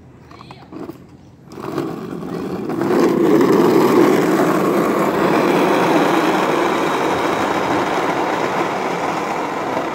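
Ride-on swing car's small plastic wheels rolling fast down an asphalt slope: a steady, grinding rolling rumble that starts about a second and a half in, builds over the next second or two and then holds.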